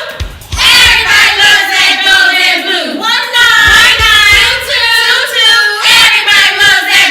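A group of voices singing together in unison, with short low thumps underneath.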